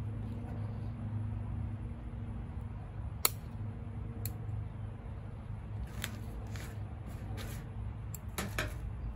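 Bonsai scissors snipping small stems of an emerald green arborvitae: one sharp snip about three seconds in, another a second later, and several more in the last three seconds, over a steady low background hum.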